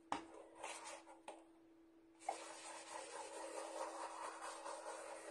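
Ink blending tool rubbed over a stencil on card, a faint steady scratchy swishing that starts about two seconds in, after a light tap and a few short brushes. A low steady hum sits underneath.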